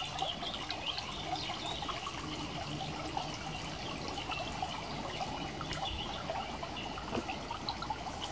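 Shallow spring-fed brook babbling steadily over stones.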